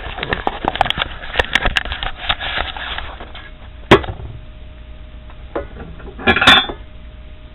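Handling noise: a quick run of clicks and knocks for about three seconds, one sharp knock about four seconds in, and a short clatter near the end with a brief metallic ring, as a camera is set down and small engine parts are picked up.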